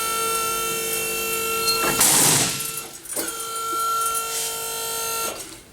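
Hydraulic wheelchair ramp of an electric shuttle bus being operated. Its pump motor gives a steady, horn-like humming tone for about two seconds, then a short hiss, then the same hum again for about two seconds before it stops.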